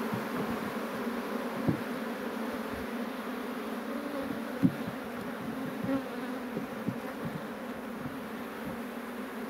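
Honey bees buzzing steadily around an opened hive. A few sharp knocks, the loudest about four and a half seconds in, come as a wooden frame is lifted out with a metal frame grip.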